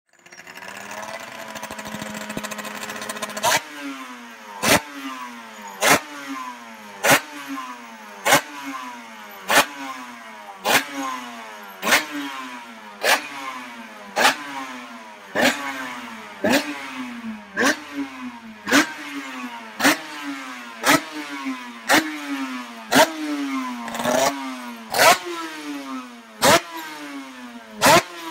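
Suter MMX 500 V4 two-stroke race engine, on a stand. It runs steadily for a few seconds, then the throttle is blipped about once a second: each blip is a sharp loud rev whose pitch falls straight back before the next.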